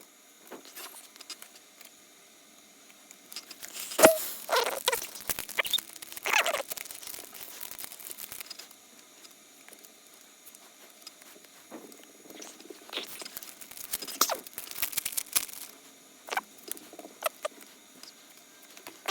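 Trading card packs being handled: wrapper crinkling and tearing, with cards rustling. It comes in two spells of a few seconds each, about four seconds in and again about twelve seconds in, with scattered small clicks between.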